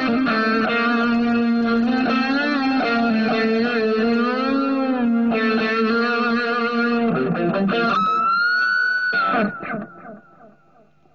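Electric guitar played through a crunch overdrive pedal and an analog delay pedal: sustained lead notes with bends and vibrato. About nine and a half seconds in, the last bent note stops and its delay repeats fade out, leaving a faint amp hum.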